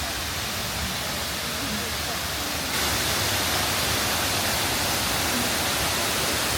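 Waterfall rushing: a steady, dense wash of falling water that gets louder and brighter a little under three seconds in.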